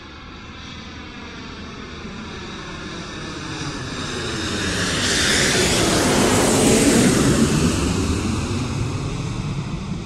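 Boeing 747 jet airliner flying overhead: its engine noise grows steadily louder, peaks about six to seven seconds in, then fades as it passes away.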